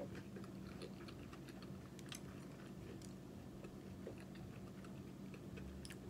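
Faint, irregular mouth clicks of someone chewing french fries with the mouth closed, over a steady low hum.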